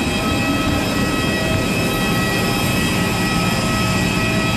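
Jet aircraft turbine noise on the apron: a steady, loud rush with several constant high whining tones.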